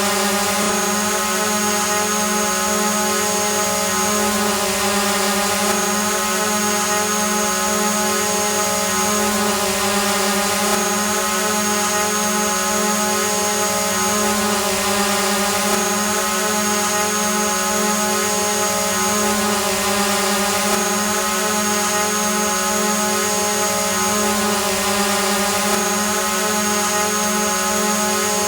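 Quadcopter drone hovering: its propellers and motors give a steady, even buzzing hum with a high whine on top.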